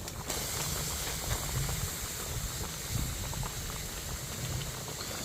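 A pot of yukgaejang (spicy beef and bracken soup) boiling over a wood fire, bubbling steadily.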